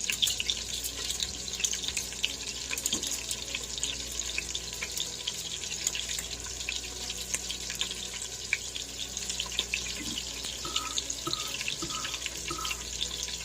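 Kitchen tap running steadily into a sink, the water splashing with many small ticks and clatters.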